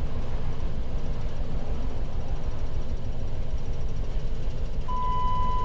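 A 2011 Jeep Wrangler's 3.8-litre V6 running with a steady low rumble, an engine with a misfire and camshaft sensor faults that "does not sound good". About five seconds in, a steady electronic beep sounds for about a second.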